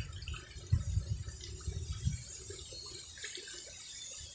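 Water sloshing and small splashes from a person wading chest-deep in a canal and ducking under the surface, with a few dull low thumps.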